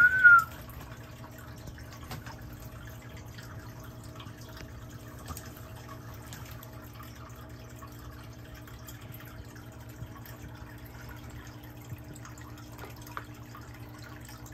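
Steady hum and trickling water from the enclosure's pool filter, with faint scattered ticks. A short whistle rises and falls at the very start.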